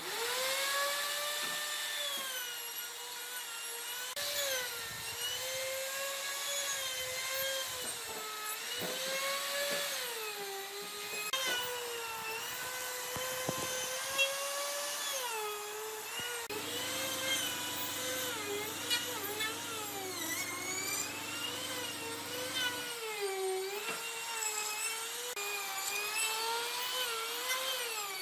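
High-speed handheld power tool working wood. It starts suddenly, and its motor whine dips and rises continually as the tool bites into and eases off the wood. A second, lower steady hum joins in for several seconds past the middle.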